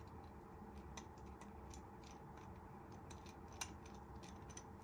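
Faint, scattered small clicks and ticks of a screwdriver working out the small screw that holds the barrel to the air cylinder of a Crosman 157 CO2 air pistol. One click is a little louder about three and a half seconds in.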